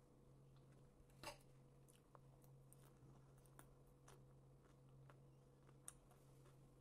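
Faint chewing of a soft omelette, with small mouth clicks and a sharper click about a second in, and a light clink of a fork against a china plate near the end, over a faint steady hum.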